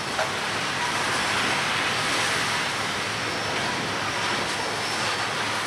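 Loaded coal hopper cars rolling past: a steady rush of steel wheels on rail, with one short click about a quarter second in.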